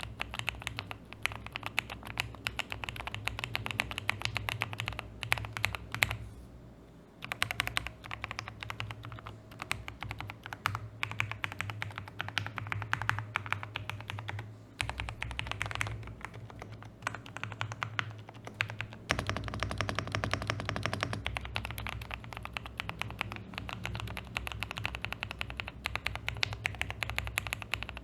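Typing on a Zuoya GMK87 mechanical keyboard fitted with factory-lubed Gateron Milky Yellow Pro linear switches and PBT doubleshot keycaps: fast continuous runs of keystrokes, with a short pause about six seconds in.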